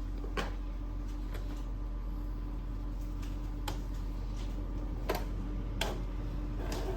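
Epson L6290 inkjet printer: a handful of single sharp clicks over a steady low hum, then just before the end a busier mechanical rattle starts up.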